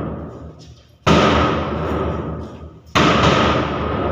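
Large bass drum on a stand struck with a beater, beating the count for a group exercise: two strokes about two seconds apart, each ringing on until the next, with the last of an earlier stroke fading at the start.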